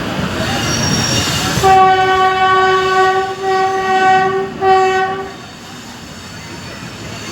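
Train horn sounding three blasts, a long one and then two shorter ones, over the rumble of the moving train. The running noise is quieter after the horn.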